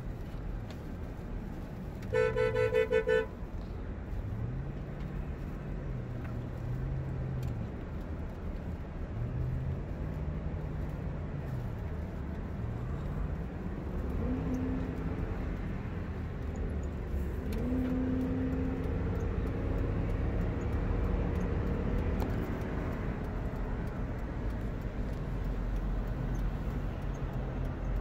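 A car horn honks in a quick string of short beeps about two seconds in, the loudest sound here, over the steady engine and road noise of a vehicle driving at highway speed, heard from inside its cab. The engine note rises and falls a few times.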